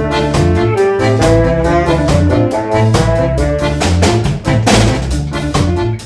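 Jazz music: a saxophone plays the melody over a walking bass line and a steady drum beat.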